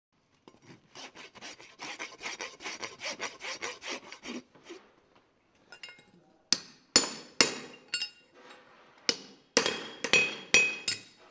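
A file scraping metal in quick, even strokes, about three a second, for roughly four seconds. After a short pause a hammer strikes a horseshoe on an anvil about nine times with a metallic ring, and these blows are the loudest sounds.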